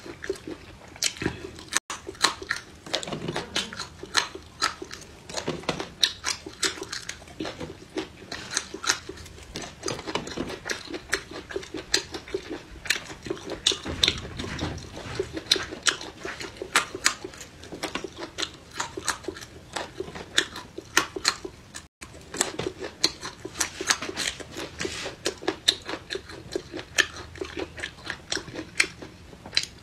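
A person chewing whole raw red chili peppers, with a steady run of crisp crunches, several a second.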